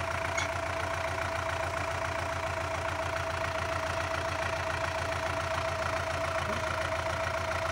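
Belarus MTZ-80 tractor's diesel engine running at a steady low speed as the tractor drives slowly over grass, with an even chug and a steady whine over it.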